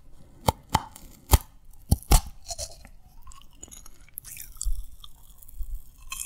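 Close-miked chewing of crunchy candy: a run of sharp, separate crunches in the first two seconds or so, then quieter chewing.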